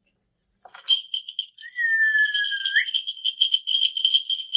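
Shaman's ritual bells shaken rapidly in a continuous jingle with a clear high ringing tone, starting about a second in. A thin whistling tone glides slightly downward for about a second partway through.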